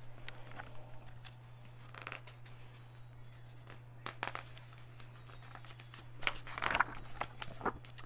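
Pages of a hardcover picture book being handled and turned: scattered soft paper rustles and crinkles, busiest near the end, over a faint steady low hum.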